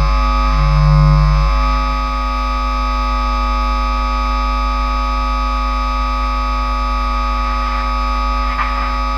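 Bass guitar played through a distortion pedal and a small guitar amp, a harsh, dense noise drone of many steady tones over a low hum. A low note sounds once in the first second and a half, then the drone holds steady.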